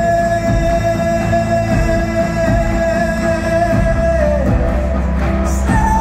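Live acoustic rock music: a male voice holds a long wordless sung note over acoustic guitar and a low steady beat, letting it fall about four seconds in, then taking up a higher held note near the end.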